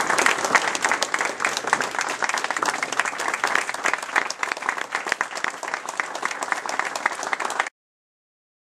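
Room audience applauding, a dense steady patter of many hands clapping, which cuts off suddenly near the end.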